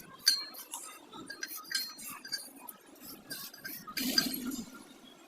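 Metal tools and parts clinking and tapping during hand work on a truck clutch plate. A sharp clink with a brief ring comes just after the start, followed by scattered lighter taps and a louder scraping shuffle about four seconds in.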